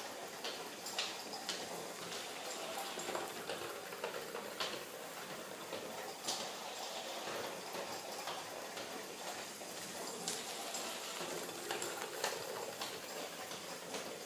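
Antique Carette live-steam toy locomotive running around a loop of sectional track: a steady hiss with irregular sharp clicks about once a second as its wheels run over the rails and track joints.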